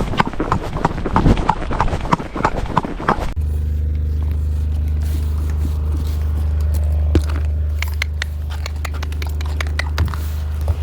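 A horse's hooves clip-clopping in a steady rhythm, about three beats a second. About three seconds in, this cuts off abruptly to a steady low rumble with scattered clicks.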